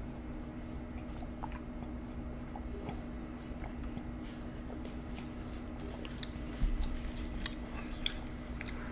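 Close-miked drinking and swallowing from a plastic cup, then wet mouth sounds and chewing with scattered small clicks, which get more frequent in the second half. A single low thump comes about two-thirds through, over a steady low hum.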